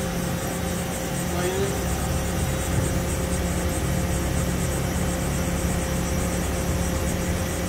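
Haas VF-3SS CNC vertical machining center running as its table traverses slowly along the X axis under servo drive: a steady mechanical hum with a constant tone and a faint fine high flutter.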